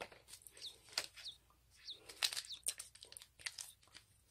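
Light clicking and tapping of plastic toy parts being handled, scattered irregularly, with a few short high squeaks in between.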